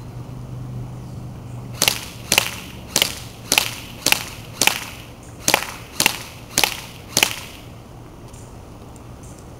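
Classic Army MP5A2 airsoft electric gun (AEG) firing ten single shots, each a sharp crack, about half a second apart.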